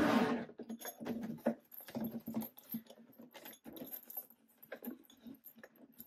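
The zipper of a Louis Vuitton Horizon 55 hard-shell suitcase is drawn around the case in a series of short, irregular rasps and clicks, loudest at the start. The case is handled as the lid is unzipped.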